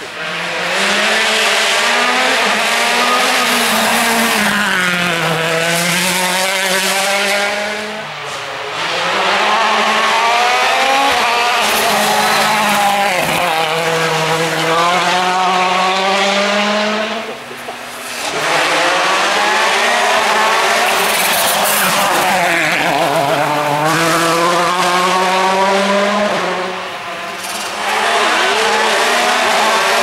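2014 World Rally Cars' 1.6-litre turbocharged four-cylinder engines driven hard, four cars in turn: each one's pitch repeatedly drops and climbs again as the driver brakes, shifts and accelerates through the bends.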